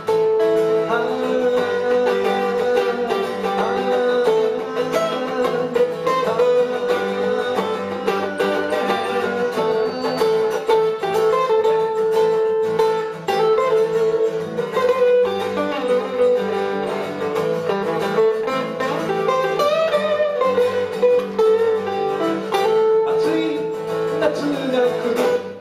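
Live band music: guitars, including an acoustic guitar, playing a song with a man singing. The music stops abruptly at the very end.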